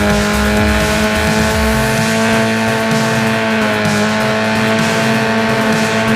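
A car engine sound, running steadily at one high pitch, with a slight dip in pitch about four seconds in.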